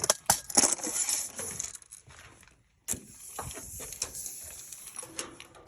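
Tape measure being pulled out and handled while measuring a room, giving scattered light clicks and rattles. There is a single sharp click about three seconds in.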